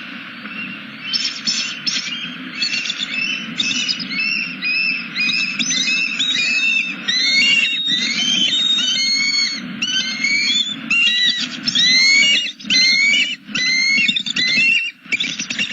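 Bald eagles giving rapid, high-pitched chattering calls, several voices overlapping in quick repeated notes that start about a second in: an alarm at an intruder near the nest. A steady low hum runs underneath.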